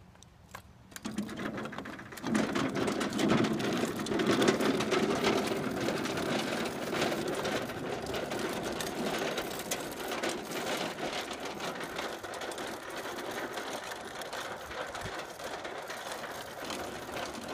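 Wheels of a wooden-sided toy wagon being towed behind a child's bike, rolling over rough asphalt with a steady rattle. It starts about a second in and grows louder soon after.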